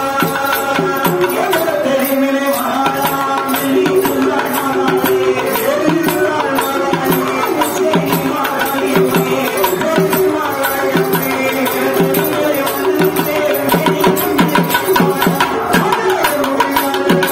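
Live Tamil devotional folk song (kummi song) for the goddess: a sung melody with held notes over a steady hand-drum beat.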